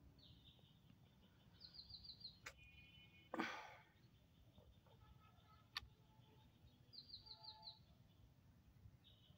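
A cast with a spinning rod: a sudden swish about three and a half seconds in, with a sharp click shortly before it and another about two seconds after. A bird sings a quick run of repeated chirps twice, near the start and again near the end.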